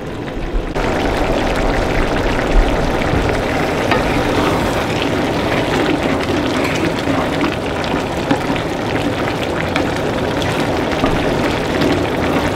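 Cream sauce of mixed wild mushrooms bubbling and sizzling as it reduces in a cast-iron pan, with a wooden spoon stirring through it. The sound gets louder about a second in.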